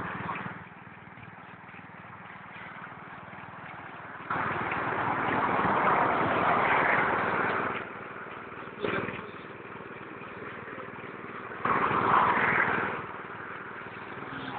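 Small gasoline engine of an airless road-line painting machine running steadily, with two loud stretches of hissing noise, one about four seconds in lasting some three seconds and a shorter one about twelve seconds in, and a brief knock between them.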